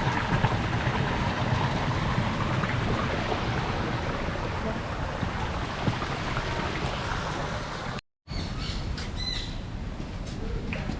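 Steady rushing noise, cut off abruptly about eight seconds in. After it, birds squawking and chirping, with short high calls.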